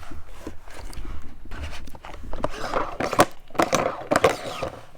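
Large plastic surprise egg being twisted apart at its screw thread: plastic scraping and creaking with irregular clicks and knocks as hands grip and turn it.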